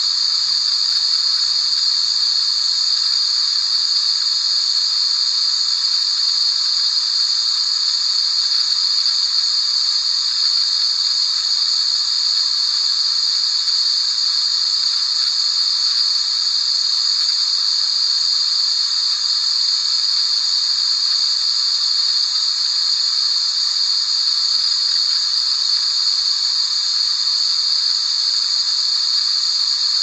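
Continuous white noise: a loud, even, unchanging hiss, strongest in the high register.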